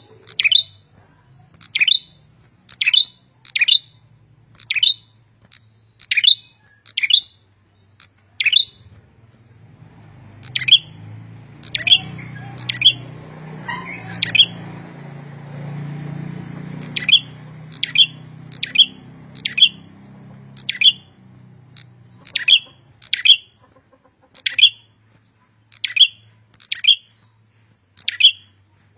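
Red-headed prenjak calling persistently: short, sharp, high notes, often in quick pairs, about one a second. The calls thin out midway while a low rumbling noise swells for several seconds, then the steady calling resumes.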